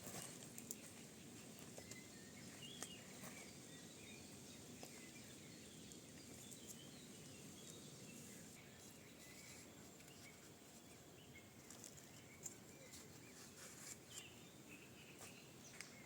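Near silence: faint outdoor ambience with a few soft, scattered bird chirps and occasional light clicks.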